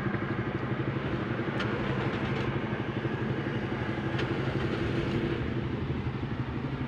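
Toyota Vios four-cylinder petrol engine idling roughly, with a fast, uneven pulsing: shaking and low RPM. This is the misfire of two dead ignition coils on cylinders 3 and 4, which give no spark.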